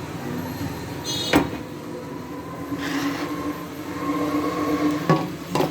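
Sharp clicks of tools and metal parts being handled while a mixer grinder is taken apart: one about a second in and two near the end, over a steady background hum.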